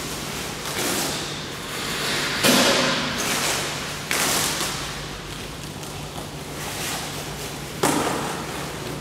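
Large plastic wrapping sheets rustling and crinkling as they are pulled off and handled, with several sudden swishes and thumps. The loudest comes about two and a half seconds in. A low steady hum runs underneath.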